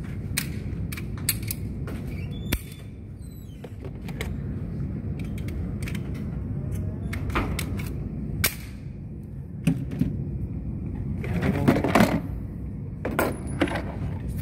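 Scattered sharp clicks, clacks and knocks from handling a pistol and a plastic range tray at the bench, over a steady low rumble.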